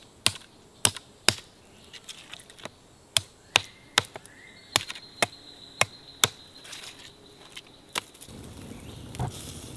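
Knife chopping through an armadillo carcass onto a wooden tree-stump block: sharp, irregular strikes, about two a second. The chopping stops about eight seconds in and gives way to a steady hiss.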